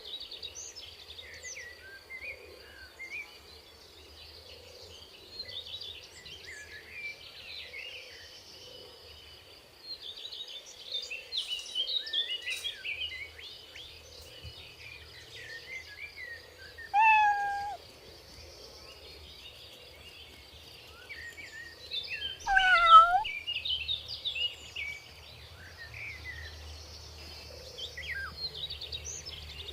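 A cat meows twice, once about 17 seconds in and again, louder and falling in pitch, about 23 seconds in. Small birds chirp throughout over a steady high insect drone.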